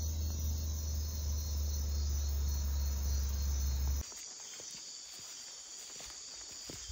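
Nighttime tropical insects, crickets and katydids, keep up a steady high chirring. For the first four seconds a loud steady low hum lies under it; then it cuts off abruptly, leaving the insects with a few faint light ticks and rustles.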